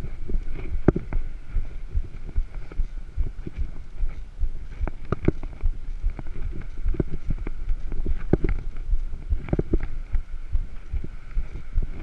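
Mountain bike rolling on a rough concrete road, heard from the rider's camera: a steady low wind rumble with irregular knocks and rattles as the bike jolts over the surface.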